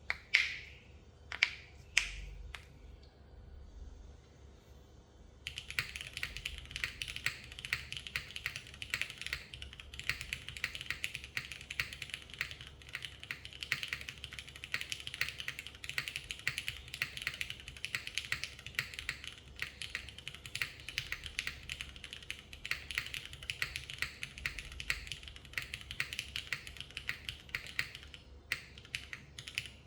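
Typing on a TKD Cycle 8 custom mechanical keyboard with modded linear Cherry Vintage Black switches, GMK keycaps, an aluminium plate and gasket mount. A few separate louder clacks come in the first couple of seconds, then steady fast typing starts about five seconds in and runs on.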